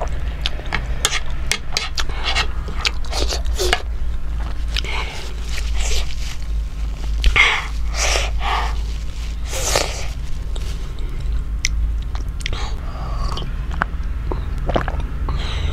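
A person chewing and biting chicken momos close to the microphone: irregular wet mouth clicks and breathy bursts, over a steady low hum.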